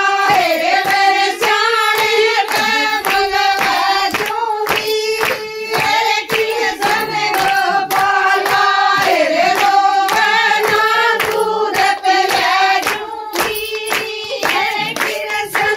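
Women singing a Haryanvi folk bhajan together, with steady rhythmic hand-clapping keeping the beat, a few claps a second.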